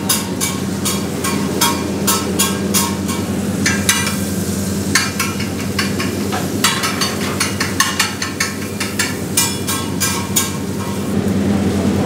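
Metal spatula clacking and scraping rapidly against a large iron tawa, about two to three strikes a second, as it stirs sliced onions, green chillies and ginger sizzling in desi ghee. The strikes pause briefly about four seconds in. A steady low hum runs underneath.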